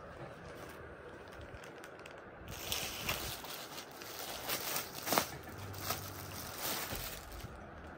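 Clear plastic packaging crinkling and rustling as the fabric wrapped in it is handled. It starts about two and a half seconds in, with a run of sharp crackles and the loudest one near the middle.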